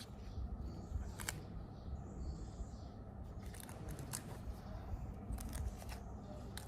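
Faint handling sounds of an unboxing: a few light clicks and taps with a soft rustle of packaging, over a low steady background rumble.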